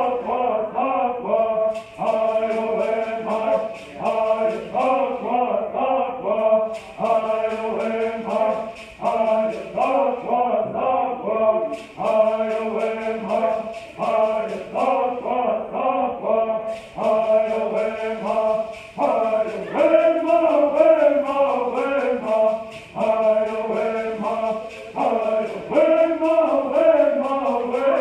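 A group of men singing a Native American bird song in unison, a repeating chanted melody, over the fast steady shaking of gourd rattles. The rattles stop for a second or two about every five seconds while the singing carries on.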